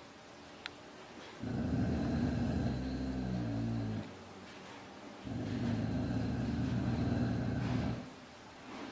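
Dog giving two long, low growls, each lasting two to three seconds with a short pause between: a warning growl from a dog guarding its food bowl.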